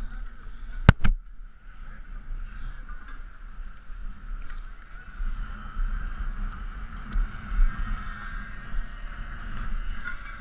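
Wind rumbling on a helmet-mounted camera microphone while a lineman works on a wooden pole on climbing gaffs, with one sharp knock about a second in and a few faint clicks later.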